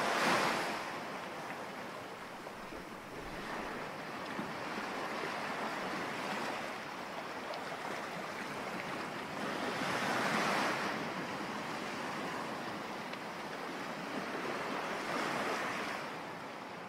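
Sea waves washing in, swelling about every five seconds, fading out near the end.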